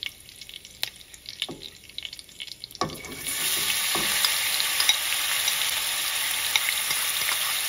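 Hot oil in a kadai crackling lightly with whole spices for a tadka (cumin, mustard seeds, fenugreek, dried red chillies, curry leaves). About three seconds in, chopped onion is tipped into the oil and it breaks into a loud, steady sizzle with small crackles.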